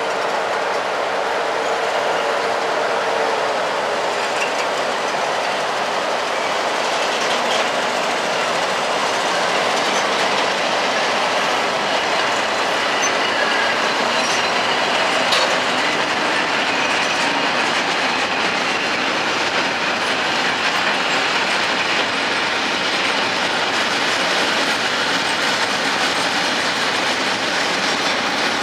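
Freight train of open box wagons rolling past at low speed behind two BLS Re 4/4 electric locomotives, its wheels clattering steadily over the rails. A steady hum from the second locomotive fades in the first few seconds as it goes by.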